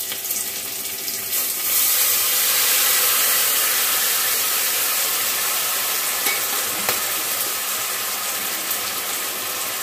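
Onion, capsicum and green chillies sizzling steadily in a hot kadai over a high flame as soy sauce is spooned in. The sizzle grows louder about a second and a half in, with a light knock about seven seconds in.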